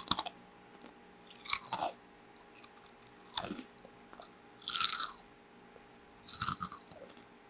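Close-miked crunching of a barbecue-flavoured ridged potato chip being chewed, in about five separate crunches roughly a second and a half apart.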